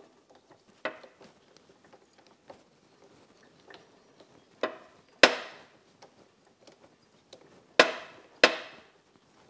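Sharp metal clicks with a short ring as a brass part is threaded by hand with a die in a die stock, the lathe chuck turned by hand against it. The clicks are scattered, and the loudest come in two pairs about half a second apart, about five and eight seconds in.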